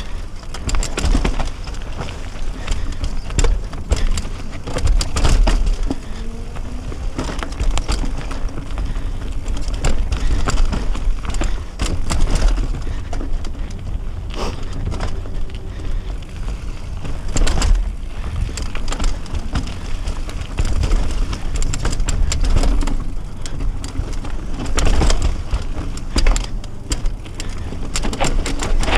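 Mountain bike riding down a rough dirt trail, recorded on a GoPro Session: a constant wind rumble on the microphone with frequent clattering knocks and rattles as the tyres hit roots and rocks.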